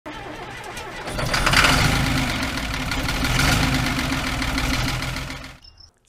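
An engine running, growing louder about a second in and fading out shortly before the end.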